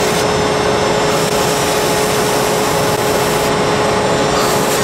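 Aerosol can of Lysol disinfectant spraying continuously into a Tesla Model 3's cabin air intake: a steady hiss mixed with the rush of the running HVAC blower pulling air in, with a steady whine underneath.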